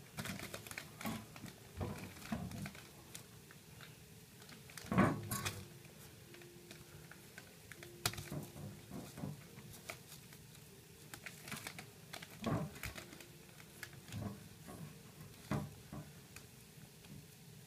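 Handling noises as an old rubber drive belt is wrapped around a car alternator's pulley and the alternator is shifted about on newspaper: irregular knocks, clicks and rustles, the loudest knock about five seconds in.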